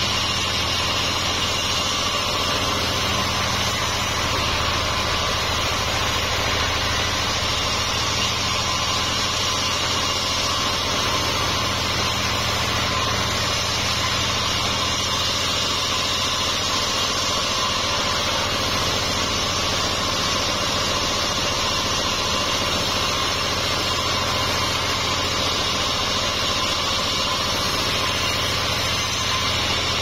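Homemade band sawmill running steadily, its band blade sawing along a long mahogany log with a constant machine drone and no pauses.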